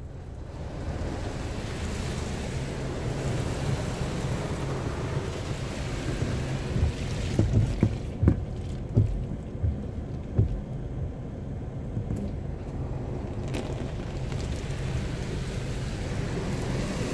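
Water spray from a Ryko SoftGloss XS rollover car wash drumming on the car, heard from inside the cabin as a steady rain-like rush with a low rumble. A run of heavy thumps comes about seven to ten seconds in.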